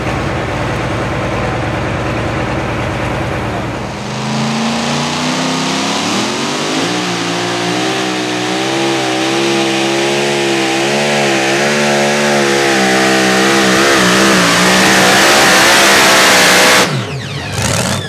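Supercharged engine of a Chevrolet-bodied two-wheel-drive pulling truck under full throttle down a pull track, its pitch climbing, then wavering up and down as the tyres fight for grip, cutting off abruptly near the end. For the first few seconds, a steady low engine rumble from a modified John Deere pulling tractor.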